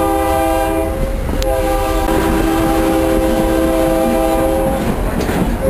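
Locomotive air horn sounding a chord of several steady tones: a blast ends about a second in, a long blast of about three seconds follows, and another starts right at the end.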